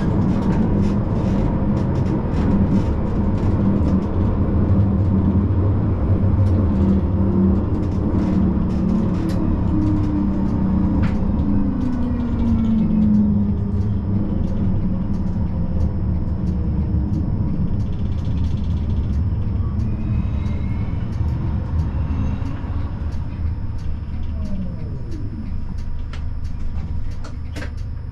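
Siemens Combino tram running on street track: a steady rumble of wheels on rails with the traction motors' whine shifting in pitch, and scattered light clicks in the first half. Near the end the whine falls in pitch as the tram slows.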